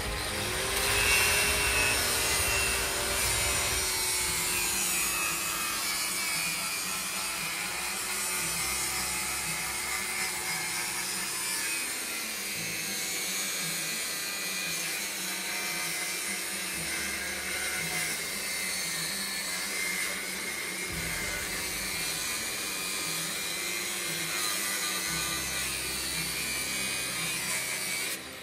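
Corded angle grinder cutting into the steel door edge of a safe: a steady grinding with a whine that wavers slightly in pitch, getting louder about a second in as the disc bites.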